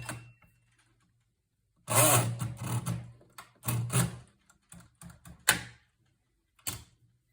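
Hermes 3000 portable typewriter being worked: after a short pause, a dense burst of mechanical rattling and clacking from its carriage and typebars, then a few scattered sharp clacks.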